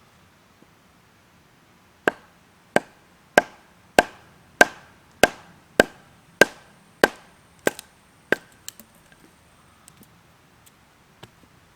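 Chopping at camp, a tool striking wood: about eleven sharp blows in a steady rhythm, a little under two a second, each with a brief ring. The blows start about two seconds in and stop a little past halfway.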